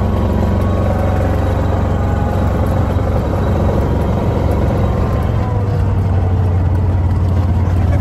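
Side-by-side utility vehicle's engine running steadily as it drives, with a low, constant hum; the engine note shifts slightly about five seconds in.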